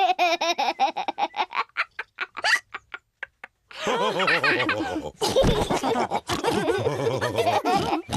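Cartoon characters laughing together in several voices. The laughter thins out about two and a half seconds in and stops for about a second. Then it starts again with overlapping voices, one of them deep.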